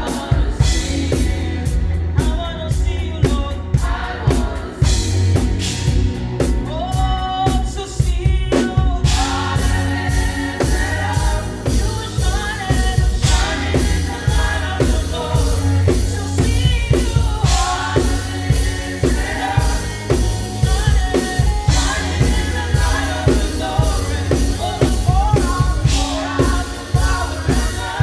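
Live gospel praise band with singers over drum kit and bass. The band gets fuller about nine seconds in.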